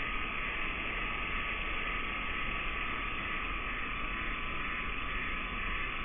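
Steady, even hiss with a constant high tone under it, unchanging throughout, with no distinct events.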